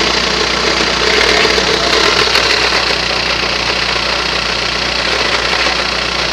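Skoda Octavia II engine running steadily at idle with an abnormal rattling, knocking noise that the owner calls strange.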